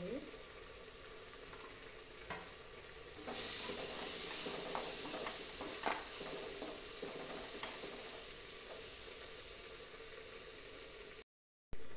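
Onion, tomato and spice masala frying in oil in a kadai: a steady sizzle that grows louder about three seconds in, with light knocks and scrapes of a wooden spatula stirring against the pan. The sound drops out for half a second near the end.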